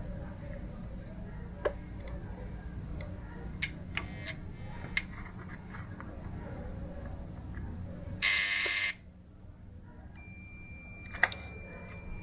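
Faint clicks as the gear-selector switch of an AL4 automatic gearbox is turned by hand, a short loud burst of hiss about eight seconds in, then a multimeter's continuity beep starts about ten seconds in as a steady high tone and holds. The beep means the switch contact has closed and the switch sits in the neutral position.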